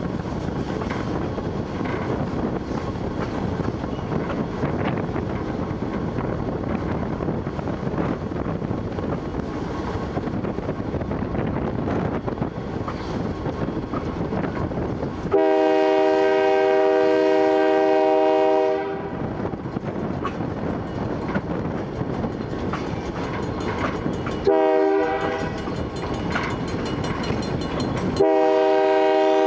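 Model train running on three-rail tubular track, heard from aboard, its motor and wheels giving a steady rumble. Its horn sounds a long chord about halfway through, a short blast about nine seconds later, and another starting just before the end.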